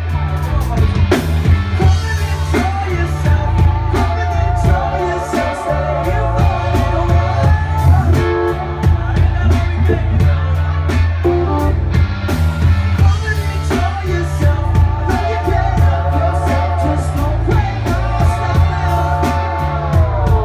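Live band playing with a horn section: trombone and trumpet hold a wavering melodic line over electric bass, guitar and drums, and near the end the line slides down in pitch.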